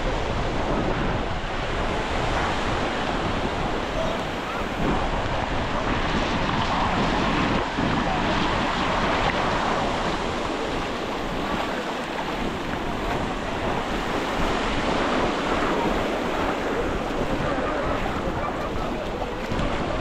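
Sea surf breaking and washing up the shore, with wind buffeting the microphone.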